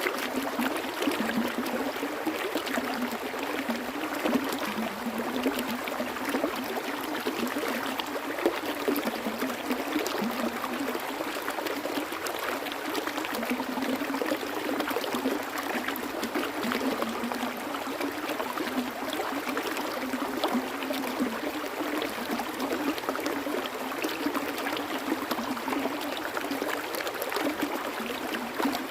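Water flowing and trickling in a small stream, a steady, even babble of small splashes and gurgles without a deep rumble.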